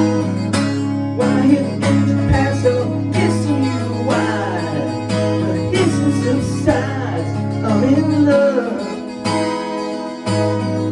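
Acoustic guitar music, strummed and picked in an instrumental passage, over a sustained low note that drops out briefly near the end.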